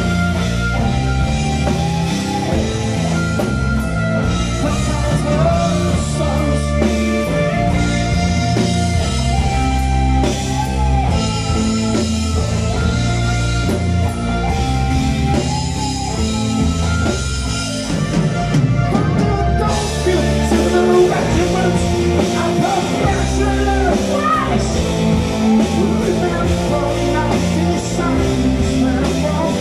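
Progressive rock band playing live and loud: electric guitar, keyboards, bass guitar and drums together.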